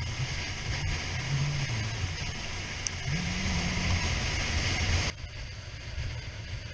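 Suzuki SV650 V-twin motorcycle engine running on the road, its pitch rising and falling with throttle and gear changes, under a loud hiss of wind noise on the microphone. About five seconds in the hiss cuts off abruptly, leaving a quieter, lower engine drone.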